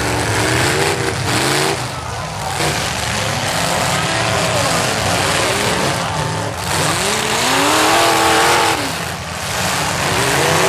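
Several demolition derby cars' engines revving hard, their pitch repeatedly rising and falling over a loud, continuous wash of engine noise.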